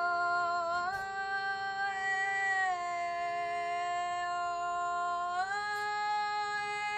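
A woman's voice holding long wordless notes over a steady drone tone, the sung pitch stepping up about a second in, dropping back near three seconds and rising again past five seconds.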